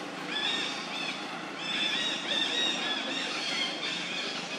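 Chorus of short, high chirping animal calls, many overlapping and repeating, each rising and falling in pitch.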